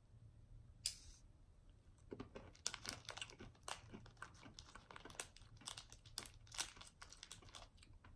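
A candy wrapper being crinkled and handled, a faint run of irregular crackles after a single click about a second in.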